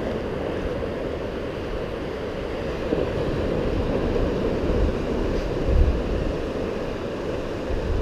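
Ocean surf washing steadily onto a beach, with wind rumbling on the microphone that swells briefly about five to six seconds in.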